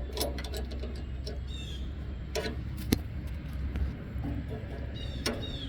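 Handling noise: scattered light clicks and knocks over a low steady hum that stops about four seconds in.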